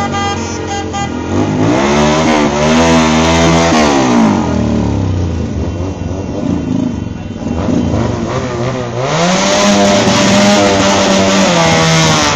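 Motorcycle engines revving: the pitch climbs about two seconds in and falls away by about four seconds, then rises again around nine seconds and is held until near the end.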